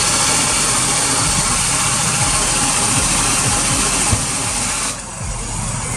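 Water running hard from an outdoor wall spigot and splashing onto concrete as hands are rinsed under it, a steady rushing hiss that drops off about five seconds in.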